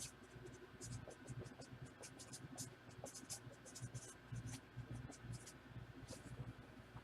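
Pen writing on paper: a run of short, quick, scratchy strokes.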